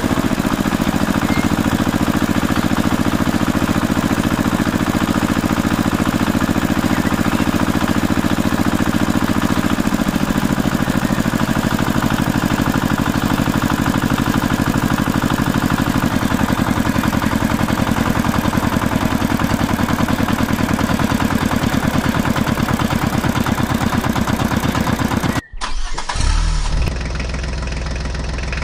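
Tractor engine running with a steady, even chug. About twenty-five seconds in it cuts off abruptly and a duller engine sound takes over.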